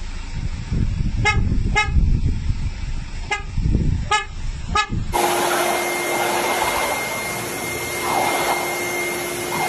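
A van's horn tooting five times in short bursts over a low rumble, as a dog sits in the driver's seat. About five seconds in it gives way to a steady rush of air from a motor-driven hose, with a steady whine, that a boxer is biting at.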